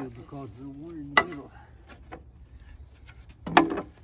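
Wooden stakes knocking together as they are picked up from a pile of lumber, with one sharp knock about a second in. Near the end there is a louder short call, the loudest thing heard.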